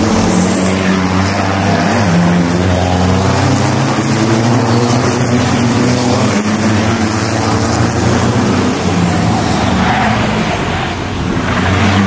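Diesel racing pickup trucks' engines running hard as the trucks pass through a corner one after another, their engine note wavering up and down.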